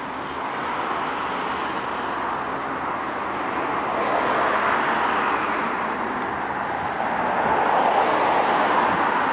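Road traffic: steady noise of cars on the street, swelling as vehicles pass about four seconds in and again near the end.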